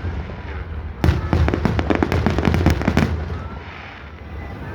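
Fireworks display: a dense run of booming shell bursts and crackling that starts about a second in and eases off near the end, with a faint whistling rise in the quieter stretch.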